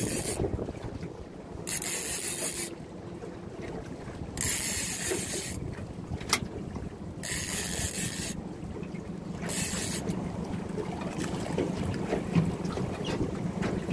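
Fishing reel buzzing in short bursts of about a second, five times at intervals of two to three seconds, as line goes on and off the reel while a jewfish (mulloway) is played on the rod.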